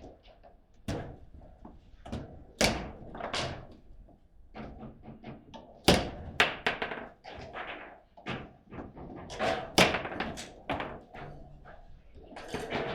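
Table football play: a rapid, irregular run of sharp knocks and thunks as the ball is struck by the rod figures and hits the table, the hardest strikes about six and ten seconds in.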